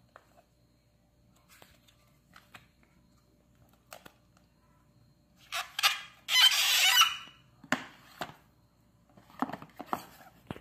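Light taps and clicks of a cardboard phone box and its inner trays being handled, with a loud harsh sound about halfway through: a short part followed by a longer stretch of about a second. Sharper knocks follow near the end.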